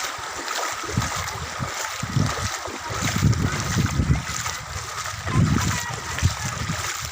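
Floodwater rushing and splashing, a steady wash of water noise, with a few low thuds around the middle.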